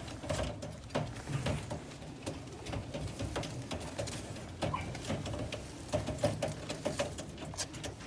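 Lahore pigeons cooing in low, repeated pulses, with scattered sharp clicks and scratches throughout.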